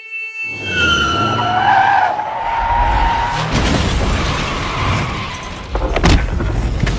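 Motorcycle crash sound effects: tyres screech in a skid, then a long crash with breaking glass and clattering debris, followed by a few heavy thuds near the end as the rider hits the road.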